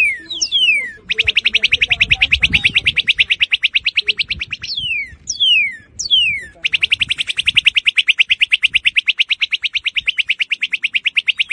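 Northern cardinal singing: clear downslurred whistles, each falling in pitch, then a long, very fast trill of identical notes. The trill starts about a second in and runs for several seconds, then comes again after a few more slurred whistles.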